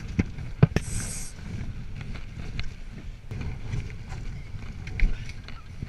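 Wind rumbling on the microphone over water moving around a Laser 2000 sailing dinghy, with a few sharp knocks in the first second, a brief hiss about a second in, and another knock about five seconds in.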